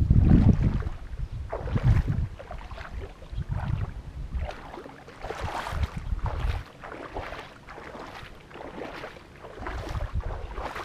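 Shallow paddy water splashing and sloshing in repeated strokes about every one and a half to two seconds as something moves through it, with wind rumbling on the microphone, strongest near the start.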